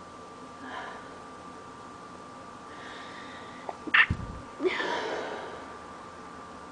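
A person sneezing once from allergies: a short in-breath, then a sharp, loud burst about four seconds in, followed by a brief voiced sound that falls in pitch.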